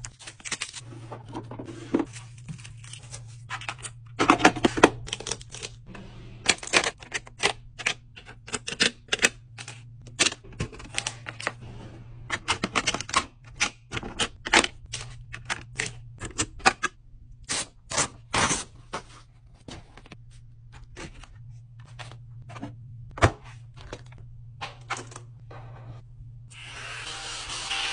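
Irregular clicks, taps and clatter of small plastic and acrylic desk items being picked up, moved and set down on a hard desktop, some in quick runs, over a steady low hum. Near the end a spray bottle starts hissing.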